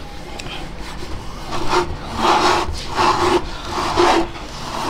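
Repeated rubbing strokes, about five in quick succession starting about a second and a half in, from a hand working over a subwoofer's freshly glued surround.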